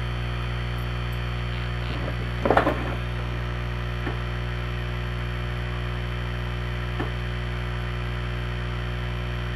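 Steady low electrical hum. A short bump about two and a half seconds in, and two faint clicks later.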